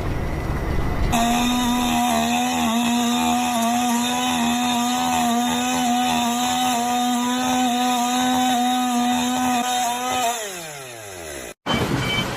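A motorised tool running at one steady pitch for about nine seconds, then winding down in a falling whine. Near the end it cuts off abruptly and a different noisy sound begins.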